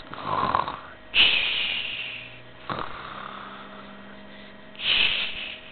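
A person imitating snoring with the mouth: a rough rattling in-breath, then three hissing breaths out, the first long.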